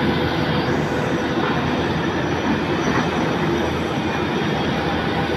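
Steady, loud drone of rooftop air-conditioning equipment running, a continuous mechanical rush with a faint steady hum.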